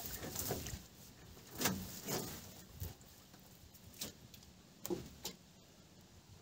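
Fishing net being fed by hand over the side of a small boat: a few soft, irregular knocks and rustles of netting and line against the boat.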